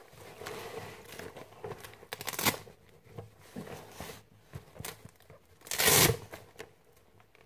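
Rustling and crinkling of things being handled and moved right next to the phone's microphone, in irregular bursts, the loudest about six seconds in.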